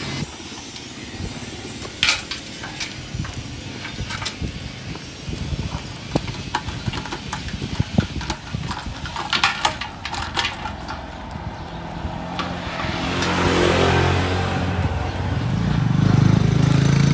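Sharp metal clicks and knocks from handling a motorcycle's fuel tank cap. In the last few seconds a motor vehicle engine running nearby grows louder.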